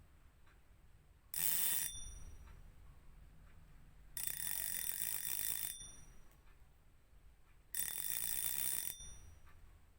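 Fishing reel drag clicking as line is pulled off the spool, in three bursts of rapid clicking: a short one about a second in, a longer one of about a second and a half in the middle, and another of about a second near the end.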